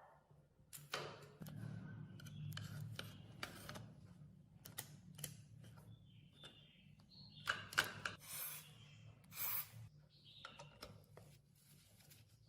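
Intermittent clicks, taps and short scrapes of hand work on metal parts, over a faint low hum. The sharpest click comes about halfway through, followed by two brief scraping rasps.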